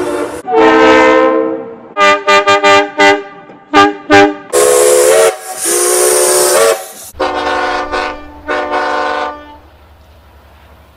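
A string of train horn and whistle blasts: a long blast, a quick run of short toots, then two long whistle blasts over a hiss of escaping steam from a small steam locomotive, and two more blasts over a low rumble. The sound falls away to a quiet hum near the end.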